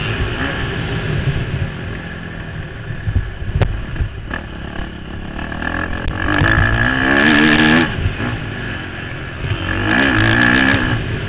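Motocross bike's engine running hard, heard from a helmet-mounted camera with wind rumbling on the microphone; it revs up loudly twice, about six and ten seconds in, the pitch wavering up and down each time. A couple of sharp knocks come a little over three and four seconds in.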